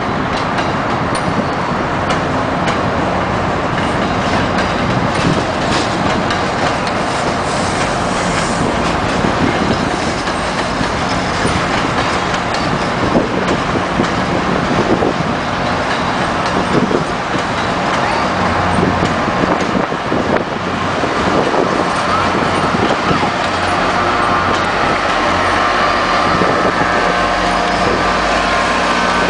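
MBTA commuter rail train rolling past on the tracks, with steady wheel and rail noise. A low engine hum from the diesel locomotive comes in during the second half.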